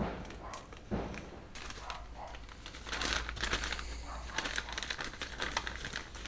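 Small clear plastic parts bags crinkling as they are handled, in irregular crackles that get busier from about halfway.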